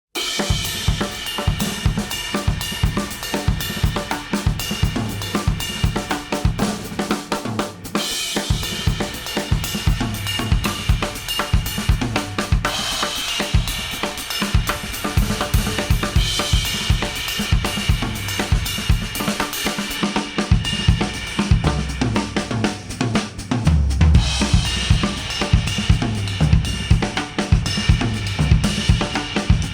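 Instrumental music with a drum kit playing a steady beat of kick, snare, hi-hat and cymbals. It is heard as played through Apple AirPods earbuds and recorded at an artificial ear simulator.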